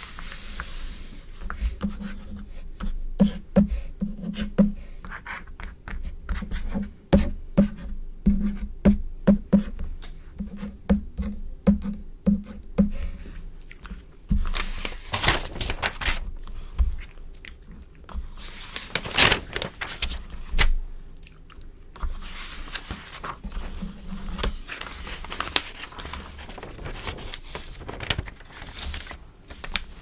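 Glossy magazine pages handled close to the microphone: a run of short clicks and taps for the first dozen seconds, then pages lifted and turned with a crisp, crinkly swish, twice, followed by softer rubbing as hands smooth the paper flat.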